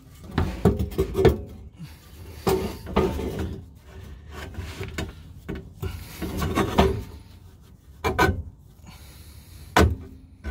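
Steel exhaust pipe scraping and knocking against the vehicle's underside in irregular bursts as it is wiggled and forced into position.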